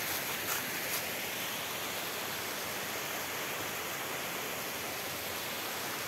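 Steady rush of water from small cascading waterfalls on a forest stream, with a few faint ticks in the first second.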